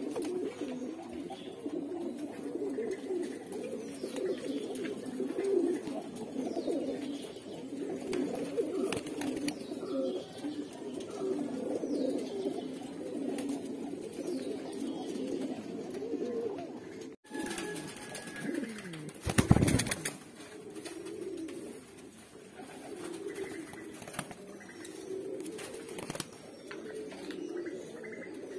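Many Mookee pigeons cooing together in a continuous, overlapping low cooing. A loud sharp knock breaks in about two-thirds of the way through.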